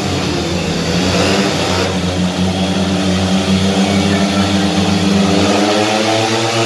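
Several speedway motorcycles' 500 cc single-cylinder methanol engines revving together at the start gate as the riders wait for the tapes to rise, a loud, held, wavering drone.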